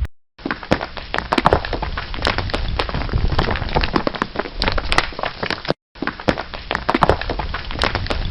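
Stones clattering: a dense run of many small knocks and cracks, like rocks and pebbles tumbling and grinding together. It plays as two separate effects, broken by a short silence at about six seconds.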